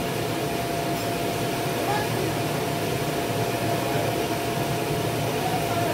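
Electric blower of an inflated water slide running steadily: an even rushing noise with one constant mid-pitched tone through it.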